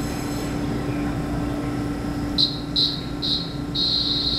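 High-pitched departure signal at the train: three short blasts a few tenths of a second apart, then one long held blast, starting about halfway in. It sounds over a steady hum from the stopped EMU3000 electric multiple unit, and the doors close right after.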